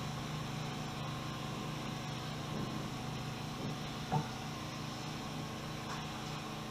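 Steady low background hum, with one light knock about four seconds in and a fainter tick near the end.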